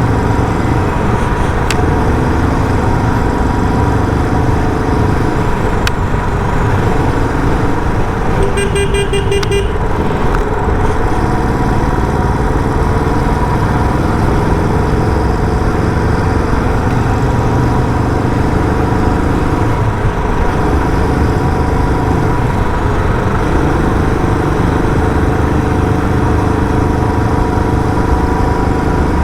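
Royal Enfield Bullet 350's single-cylinder engine running through its stock silencer while riding, the revs rising and falling. A horn sounds a quick run of short toots about nine seconds in.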